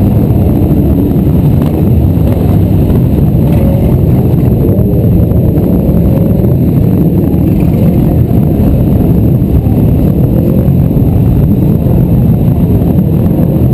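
A pack of motorcycles running together at low speed, a dense, steady engine rumble whose pitch wavers up and down as riders work the throttle, heard from a camera riding on one of the bikes.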